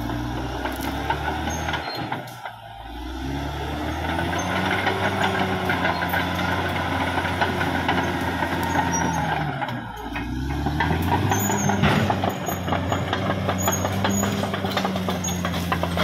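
Caterpillar D6R XL bulldozer's diesel engine working under load, its pitch rising and falling. It sags briefly about two seconds in and again about ten seconds in, then climbs back up each time, with rapid clicking and clatter through the second half.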